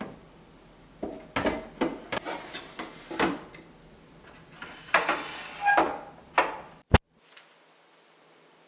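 Hard objects knocking, scraping and clattering as they are handled, a dozen or so separate knocks, ending in one sharp click about seven seconds in.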